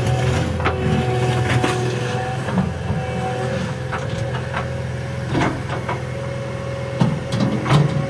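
Caterpillar 236 skid steer's diesel engine running steadily under load with a steady whine over it, as the loader grades dirt with its bucket; scattered knocks and clanks come from the bucket and machine working, more of them about five seconds in and near the end.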